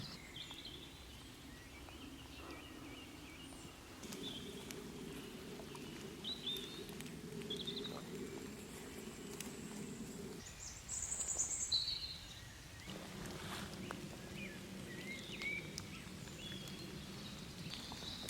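Woodland birds singing: scattered short chirps and calls over a low, steady rushing background, with one louder, higher call about eleven seconds in.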